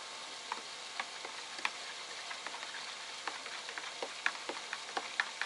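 Light, sharp clicks and clinks over a soft steady hiss, irregular at first and coming more often toward the end, from a mug of hot cocoa being prepared with just-heated water.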